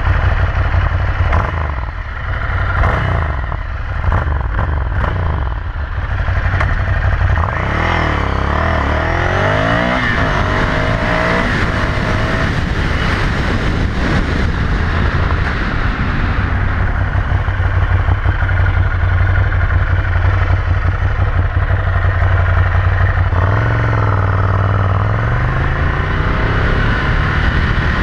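Ducati Scrambler 800's air-cooled L-twin through a Termignoni exhaust, heard from onboard while riding. The engine pulls up through the revs, holds a steady cruise, then drops at a gear change about two-thirds of the way through and climbs again.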